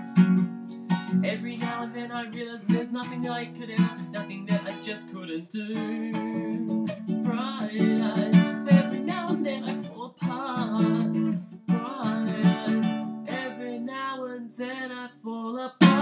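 Acoustic guitar strumming chords in an instrumental passage, with a faint wordless voice at times. A sudden louder strum comes right at the end.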